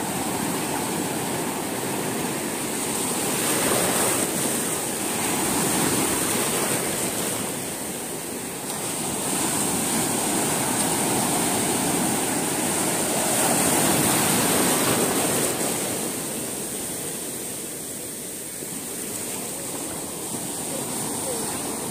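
Sea surf: waves breaking and foam washing through the shallows, the rush swelling and easing every few seconds.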